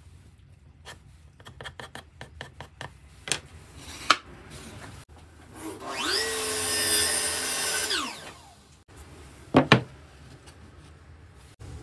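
Drill driver motor spinning up, running steadily for about two seconds, then winding down. Before it there are light clicks and taps, and after it two sharp knocks close together.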